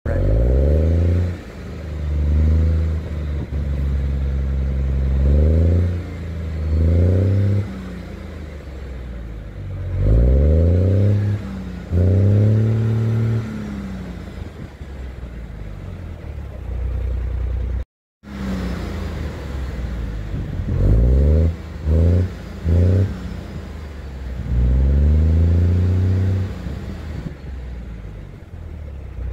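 Cummins ISM diesel engine of a Neoplan AN440 transit bus, its exhaust heard loud and throaty from the bus roof. It accelerates in several runs, the note climbing and then dropping back each time, with a few short blips of throttle past the middle.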